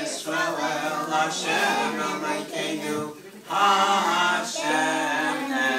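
Several voices singing together without instruments, with a short break about three seconds in.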